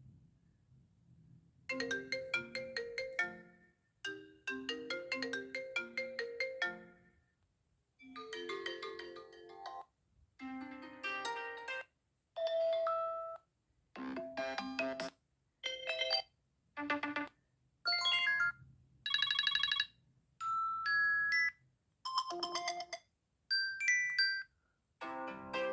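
A run of iPhone stock ringtones, each played for a second or two and cut off, with short silences between. The first short melody plays twice, then a dozen or so different tones and chimes follow one after another.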